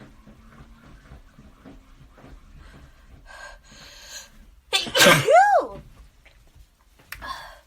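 A person sneezing during a sneezing fit while congested. A noisy breath comes about three seconds in, then a loud sneeze about five seconds in whose voiced cry rises and then falls in pitch, and a shorter breathy burst near the end.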